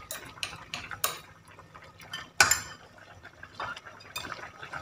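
Stainless-steel ladle clinking and scraping against a stainless-steel pot while a thick curry is stirred: scattered clinks, with one sharper knock about halfway through.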